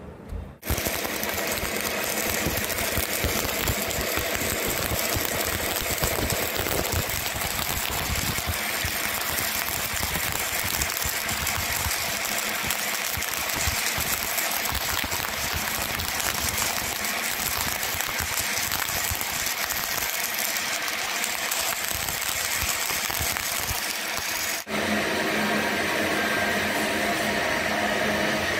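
Electric arc welding: a steady crackling and sizzling arc as a vertical fillet weld is run. Near the end the sound changes to a steadier, humming noise.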